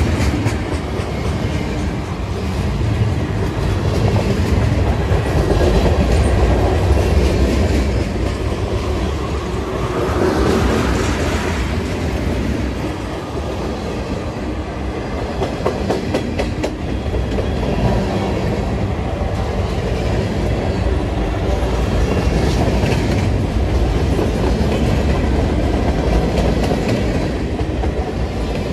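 Freight cars of a long Canadian Pacific freight train rolling past at speed: a steady low rumble, with wheels clicking over the rail joints.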